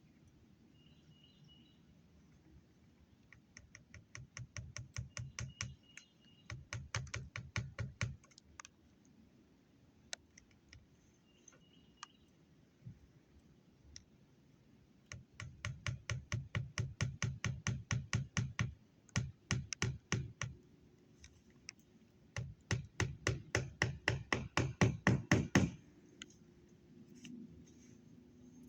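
Hammer tapping in quick runs of light blows, about six a second, each run lasting a few seconds with pauses between, as nails are driven to fasten roofing down.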